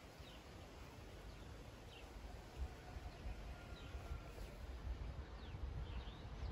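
Wind buffeting the microphone in low, uneven rumbles that grow stronger toward the end, with a few faint bird chirps.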